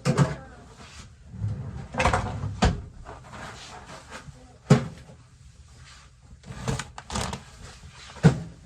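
Kitchen clatter of groceries being unpacked and put away: about six sharp knocks and bumps, irregularly spaced, as items are set down and doors are opened and shut.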